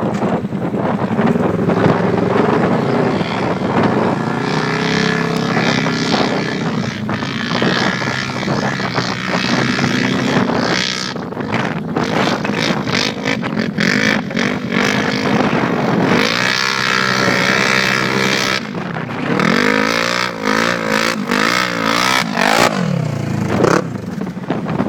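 Polaris RZR XP 900 side-by-side's twin-cylinder engine revving hard under load up a steep hill climb, its pitch rising and falling repeatedly. Over the last few seconds it swings quickly up and down.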